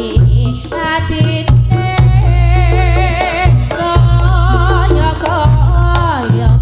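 Reog gamelan music through a sound system with heavily boosted bass: kendang drum strokes over a deep droning low end, with a wavering melody line above.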